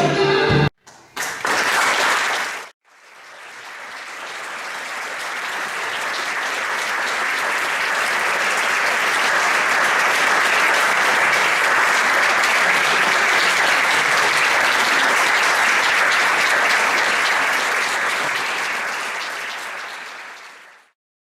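Audience applauding: a short burst about a second in, then sustained applause that swells up, holds steady and fades out near the end.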